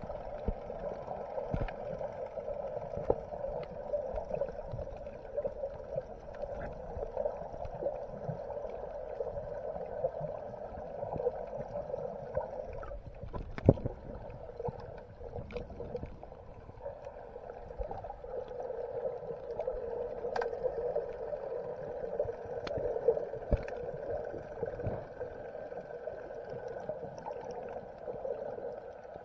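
Muffled underwater noise picked up through an action camera's waterproof housing: a steady hum with a low rumble and sloshing, broken by scattered sharp clicks and knocks, one louder knock about halfway through.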